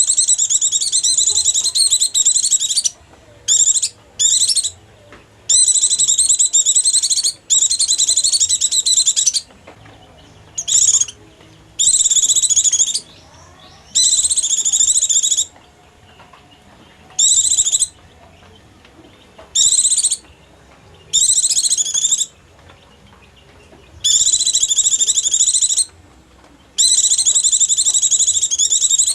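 White-eye (pleci) song used as a lure call: a rapid, high twittering chatter in bursts of about half a second to three seconds, with short pauses between.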